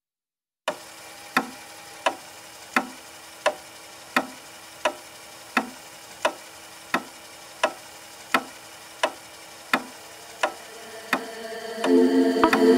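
Regular ticking, about three ticks every two seconds, over a faint steady hum; music comes in near the end.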